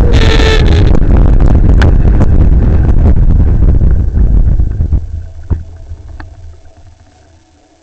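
Wind buffeting the microphone of an action camera mounted on a moving electric scooter, with loud road rumble. It dies away from about five seconds in as the scooter slows. There is a brief shrill tone right at the start and a few clicks.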